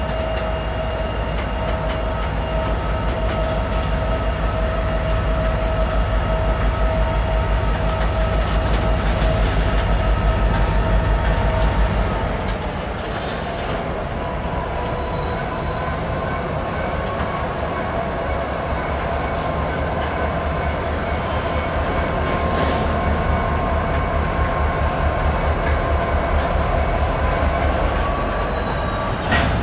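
Freight train shoving slowly: covered hopper cars roll by with a steady high wheel squeal over the low throb of the Union Pacific diesel locomotives pushing them. About halfway through, the squeal slides to a different pitch and the engine throb eases a little.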